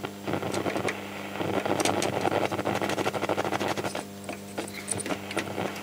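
AWA Radiola 467MA valve radio's speaker giving a bad, steady mains hum under AM static and crackle as the dial is tuned between stations. The static is loudest from about one to four seconds in, then drops back.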